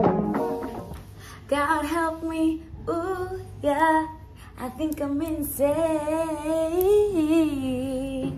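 A woman singing alone in short, wavering phrases, then a longer held note that stops near the end.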